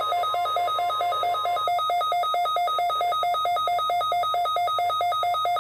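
Weather radio alert alarm beeping rapidly in two pitches, about three to four beeps a second. For roughly the first second and a half, the steady 1050 Hz National Weather Service warning alarm tone sounds faintly beneath it.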